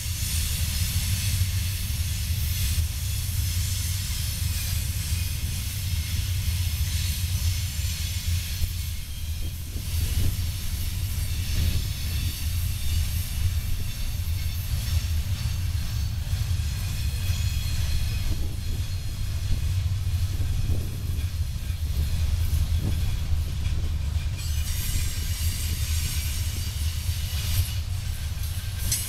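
Freight cars of a mixed freight train rolling past at close range: a steady low rumble of wheels on rail, with steady high-pitched noise over it and a few faint knocks.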